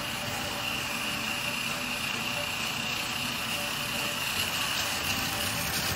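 Battery-powered Tomy Plarail toy train running along plastic track, its small motor and gears giving a steady high whine over an even running noise.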